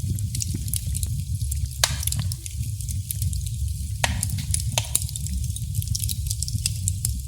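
Wood fire crackling: a steady low rumble of the flames with irregular sharp pops and snaps, two louder pops about two seconds in and about four seconds in.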